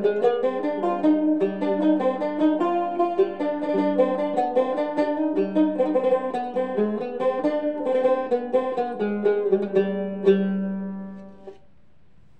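Cümbüş, the Turkish metal-bowled banjo-like lute, played as a quick melody of plucked notes. A final note about ten seconds in rings out and fades away.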